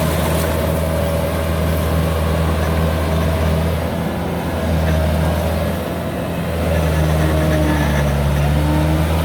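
Kubota DC93 rice combine harvester's diesel engine running steadily as it works the field, with a brief dip in level about six seconds in.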